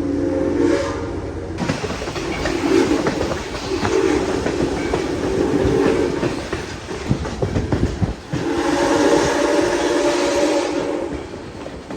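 Southern Railway 630's Nathan six-chime steam whistle blowing a chord in several blasts: a short one at the start, two shorter ones about three to six seconds in, and a long blast near the end. Clattering and knocking from the train run between the blasts.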